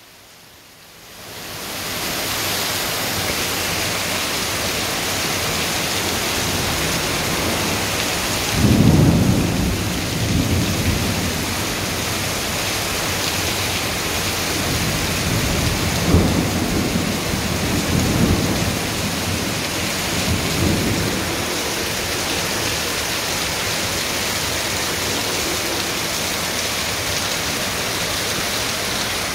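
A heavy rainstorm: the steady hiss of a downpour on clay roof tiles and a flooded street. Low rumbles of thunder swell about eight seconds in and again a little past halfway.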